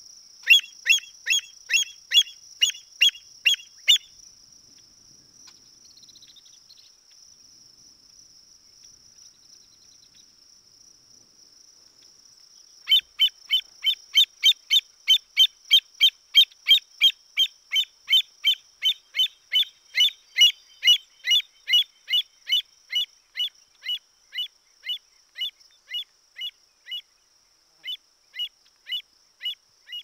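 American avocet giving a rhythmic series of sharp, high-pitched calls, about two a second: a burst of about eight near the start, then after a pause of about nine seconds a long run that slows and thins out toward the end. A steady high cricket trill runs underneath.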